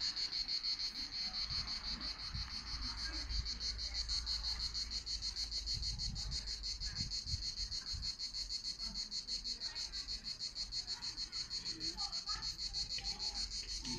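Insects chirring in a steady, high-pitched chorus that pulses rapidly and evenly.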